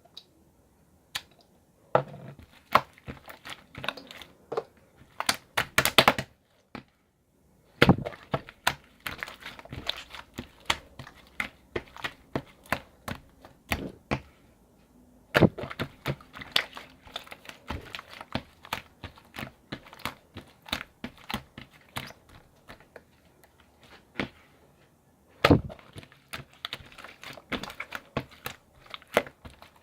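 Irregular clicks, taps and crinkling in bursts, with a few short pauses between them.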